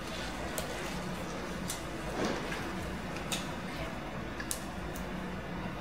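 Blue disposable exam gloves being pulled on and adjusted, giving a few faint clicks and rustles over a steady low room hum.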